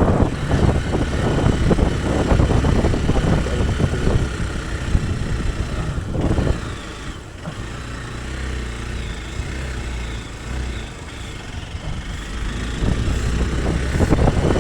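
Hero Xpulse 200 Pro motorcycle's single-cylinder engine running while riding. It eases off to a quieter run about halfway through and picks up again near the end.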